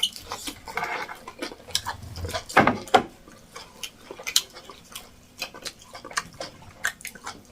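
Eating at a table: scattered light clicks and clinks of dishes and cutlery, with a louder knock a little before halfway.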